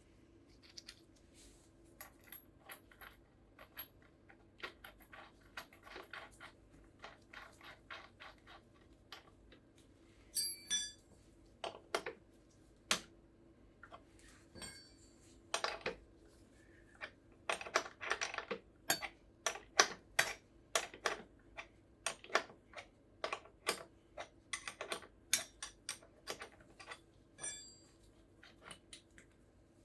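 Hand tools and small metal parts of an e-bike drive motor clicking, tapping and clinking during disassembly, irregular and busier in the second half, with a few short metallic rings like a part set down or dropped.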